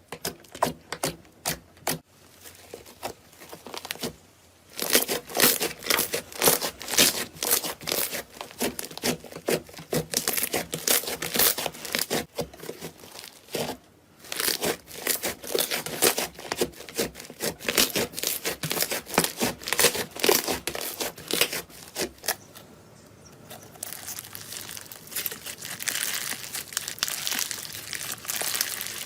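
Slime being pressed and squeezed by hand, giving rapid runs of crackling pops and crinkles with short pauses between them. Near the end it turns into a softer, even rustle.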